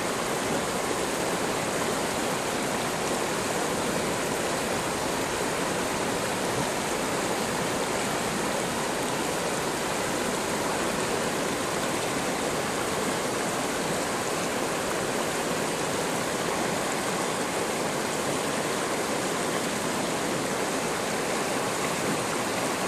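River rapids running high, fast water rushing over and around rocks in a steady, unbroken rush.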